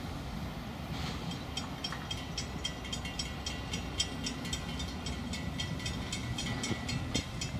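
Railroad grade-crossing bell ringing in rapid even strikes, about three to four a second, starting about a second and a half in and stopping shortly before the end, while the gate arms rise after the train has cleared. A low rumble of road traffic and wind runs underneath.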